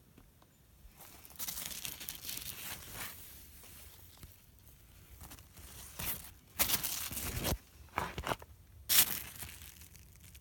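Large squash leaves rustling and crinkling as a hand pushes among them and handles them, in several bursts, with the loudest ones in the second half.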